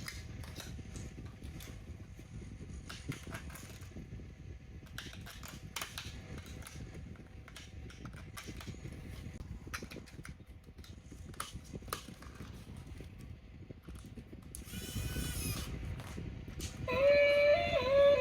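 Small clicks and rustling from handling plastic toy parts and packaging, with a louder rustle about three-quarters of the way through; background music with a singing-like melody starts near the end.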